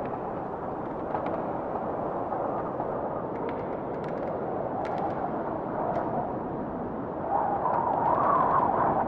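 Steady rushing noise of wind and rough lake water, with a few faint ticks, growing louder about seven seconds in.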